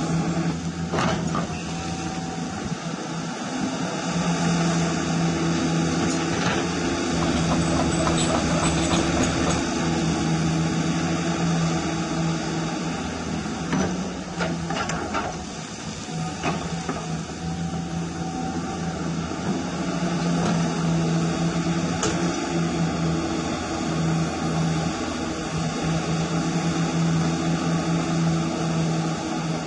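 RC hydraulic excavator's hydraulic pump whining steadily as the machine digs wet clay, dipping in level about halfway through as the boom and arm work. A few sharp clicks cut in over the whine.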